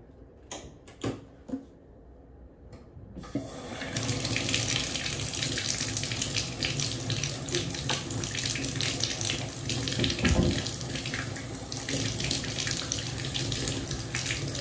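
A few light knocks, then a bathroom sink tap is turned on about three seconds in and water runs steadily into the basin.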